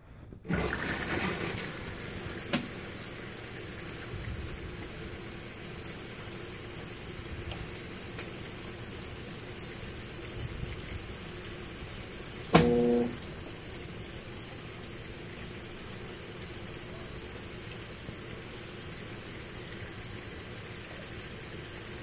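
Consul 16 kg top-load washing machine filling: a steady hiss of water running into the drum, starting about half a second in. About halfway through comes a click and a brief motor hum as the agitator turns the load.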